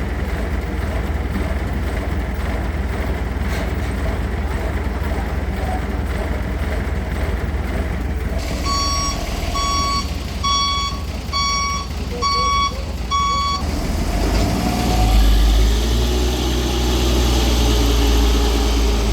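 Heavy road construction machinery engines running, with a vehicle's reversing alarm beeping six times at an even pace midway through. In the last few seconds a deeper, louder engine drone takes over.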